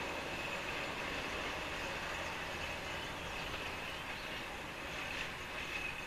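NS DE2 diesel-electric railcar running steadily as it pulls away up a grade.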